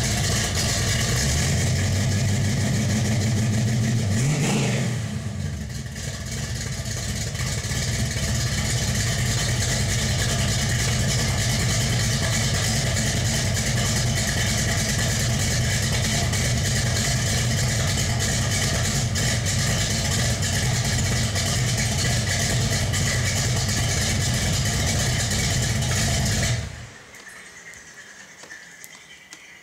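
Cammed small-block Chevy V8 in a Pontiac Trans Am idling with a lope through a new dual 3-inch exhaust, a deep-toned bark, dipping briefly about five seconds in. The engine shuts off near the end.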